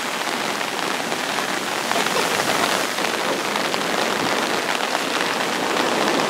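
Steady rain falling: an even hiss with a fine patter of drops.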